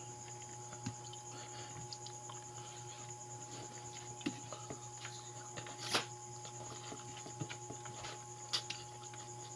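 A person chewing pancit noodles and fried dried fish, with soft wet mouth clicks and smacks, a sharper click about six seconds in and another near the end. A steady low hum runs underneath.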